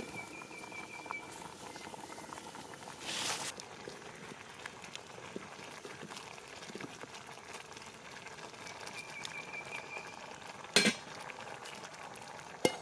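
Pot of liquid boiling hard over a wood campfire, a steady bubbling, with a wooden spatula stirring through it. Near the end come sharp metallic clinks as the pot's metal lid is handled and set on.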